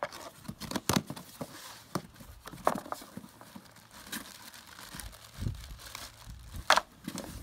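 Cardboard box being slit open along its packing tape with a knife and its flaps pulled apart, then a plastic bag rustling and crinkling as parts are lifted out: scattered tearing and crinkling sounds with one sharp crackle near the end.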